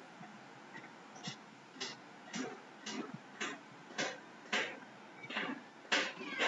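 A regular series of about ten short, sharp taps, roughly two a second, growing louder toward the end.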